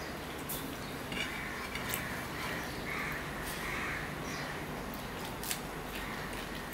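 Fingers mixing rice and curry on a plate, with sharp clicks as the fingers knock against the plate. Several short high calls sound in the background between about one and four seconds in.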